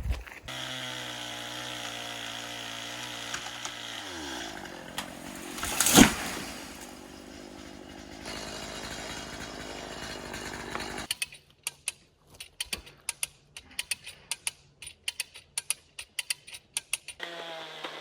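Chainsaw engine running steadily, then slowing with a falling pitch about four seconds in. A single sharp, loud crack follows about two seconds later. For the last several seconds there is a run of irregular clicks and crackles.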